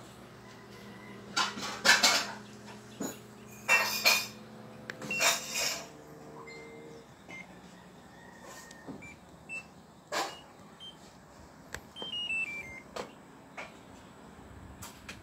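LG top-load washing machine, faulty so that its tub won't spin: a low steady hum for the first five seconds with several loud clunks, then short control-panel beeps and, a little past the middle, a quick descending run of beeps.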